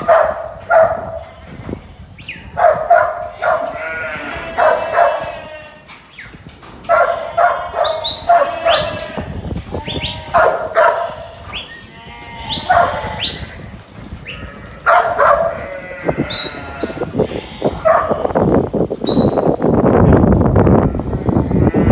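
A mob of sheep bleating again and again, loud calls coming every second or two as a working kelpie pushes them round a yard. In the last few seconds the calls give way to the scuffle and trample of the mob running across the dirt.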